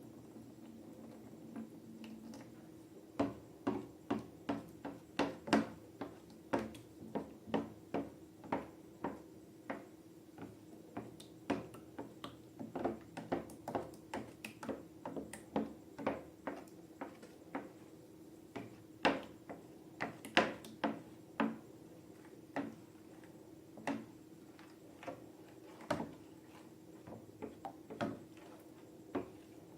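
Slime being squeezed and poked by hand, giving irregular sticky clicks and pops, over a steady low hum.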